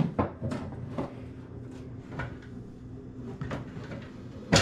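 A few scattered light knocks and clicks, like things being handled or set down on a kitchen counter, the sharpest right at the start, over a steady low hum.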